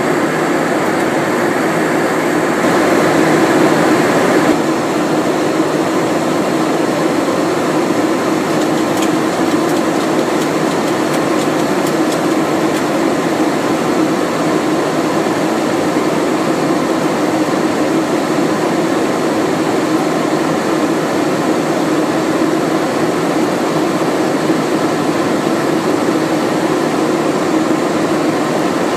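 Steady rushing noise on a Boeing 737 flight deck in flight, the airflow and air-conditioning noise heard in an airliner cockpit. It is a little louder and brighter for the first four seconds or so, then stays even.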